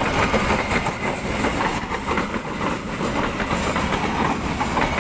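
Passenger train coaches rolling past close by: a steady rail rumble with the wheels clattering over the rail joints.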